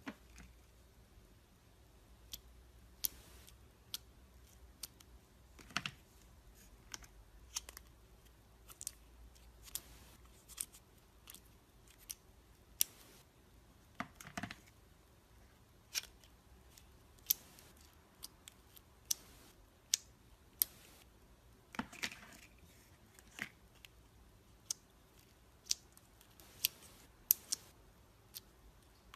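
Slime being played with by hand, giving sharp little clicks and pops at irregular intervals, about one a second. There is a longer squishing sound about a third of the way in and another about three quarters of the way in.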